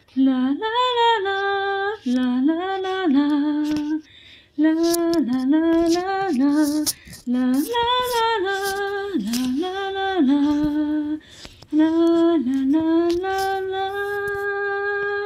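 A woman singing unaccompanied, a slow melody in short phrases with brief pauses, ending on a long held note.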